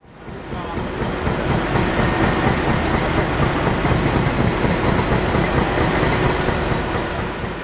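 Steady, loud rumble of heavy vehicles and machinery, with a rattling texture, fading in over the first second.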